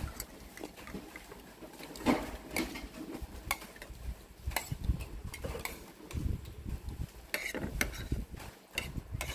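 Metal cutlery clinking and scraping against a ceramic plate as noodles are scooped up and eaten, in scattered light clicks.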